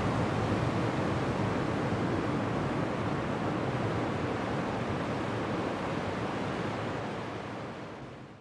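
A steady, even rushing noise, heaviest in the low end, that fades out over the last second.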